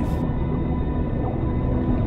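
Film score music of low, steady held notes under a narration pause.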